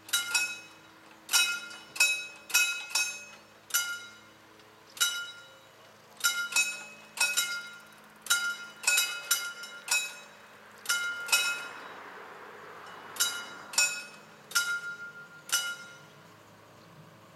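Mechanical level-crossing warning bell (Vorläutwerk) ringing in irregular clusters of two to four sharp strikes, each ringing on briefly, as the mechanical barriers are lowered. It stops a couple of seconds before the end, and a soft rushing noise swells and fades about two-thirds of the way through.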